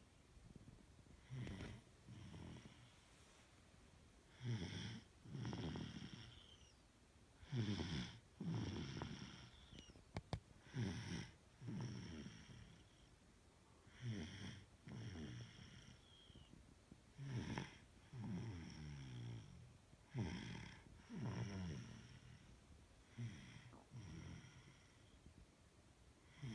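A sleeping person snoring in a steady rhythm, about one snore cycle every three seconds, each in two parts. A few sharp clicks sound briefly near the middle.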